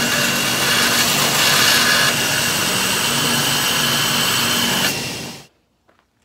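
Belt grinder running with a 1084 carbon-steel knife blank pressed against the abrasive belt, grinding the handle section flat: a loud, steady grinding hiss with a high whine. It cuts off abruptly about five and a half seconds in, followed by a few faint clicks.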